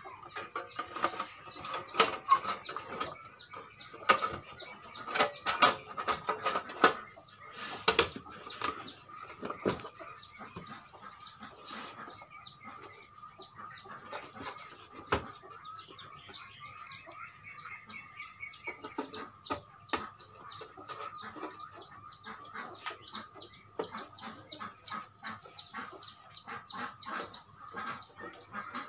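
Sheet-metal amplifier cover clanking and scraping as it is handled and fitted back onto the chassis, with sharp knocks mostly in the first several seconds, then lighter clicks of screws being driven. Bird calls chatter in the background through the second half.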